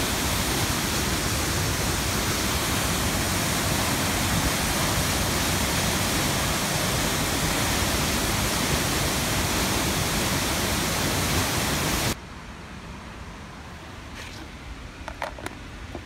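Loud, steady rush of the Låtefossen twin waterfall heard up close. About twelve seconds in it cuts off abruptly, leaving a much quieter background with a few faint clicks near the end.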